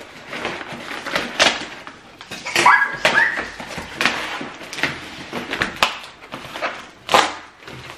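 Cardboard box and its brown paper wrapping being torn open and rustled by hand, a run of crackling rips. About two and a half seconds in, a small child gives a short, high-pitched vocal sound.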